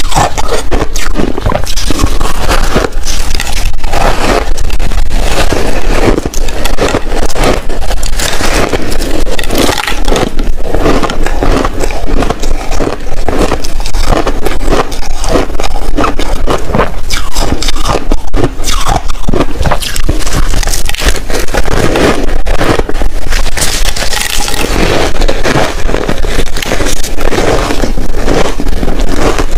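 Close-miked biting and chewing of frozen shaved ice: a dense, loud crunching and crackling with no pauses.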